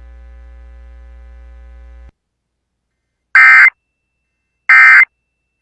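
A low steady hum for about two seconds, then after a short silence two short, loud, buzzy data bursts about a second and a half apart: the Emergency Alert System SAME end-of-message code that closes a broadcast alert.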